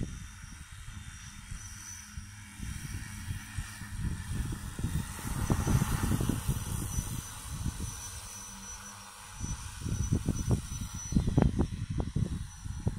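Wind buffeting the microphone in irregular gusts, stronger in the second half, with a faint steady high-pitched tone underneath.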